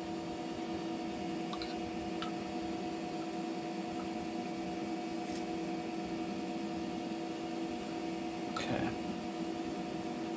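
A steady hum at one fixed pitch, with several overtones, from an electrical or mechanical device. Faint clicks of PVC pipe fittings and a cement-can cap being handled sound over it, with a slightly louder knock about eight and a half seconds in.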